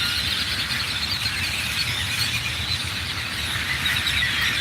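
A large flock of small birds calling all at once in a tree, a dense, steady chatter of many overlapping high chirps.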